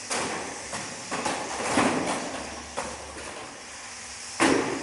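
Radio-controlled banger cars crashing into each other and the wooden track rails: a run of sharp knocks and bangs about a second apart over a steady hiss, the loudest bang near the end.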